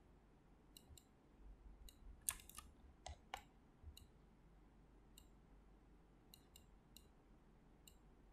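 Faint computer mouse clicks, about a dozen spread irregularly, with a louder cluster of clicks and rattles about two to three seconds in.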